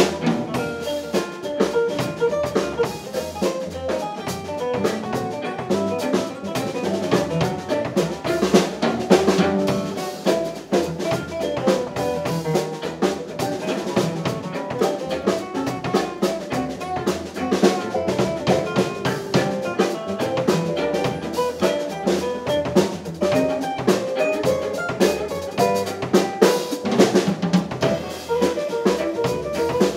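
Live instrumental music from a fiddle, banjo, guitar, upright bass and drum-kit quintet playing a tune, with the drum kit's hits sounding clearly throughout.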